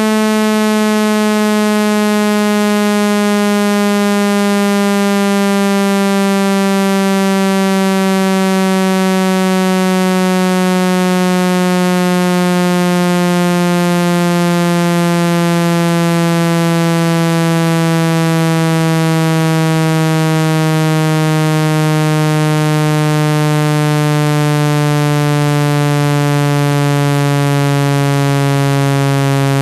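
Speaker-cleaning tone: a single loud, buzzy synthesized tone rich in overtones, sliding slowly and steadily down in pitch, played to shake water and dust out of a phone speaker.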